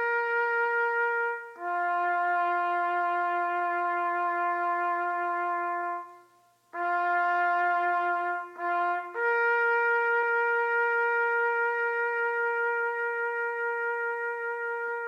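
A brass-toned horn sounding long, steady held notes that alternate between two pitches: a higher note, then a lower one held for several seconds, a brief break, the lower note again, and finally a long high note that fades slowly near the end.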